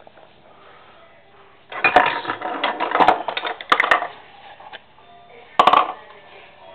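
Kitchen utensils and dishes clattering and rattling for about two seconds, then one sharp clatter a little before the end.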